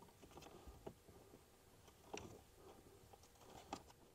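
Near silence with a few faint, scattered clicks and light handling noise, the clearest about two seconds in and again near the end.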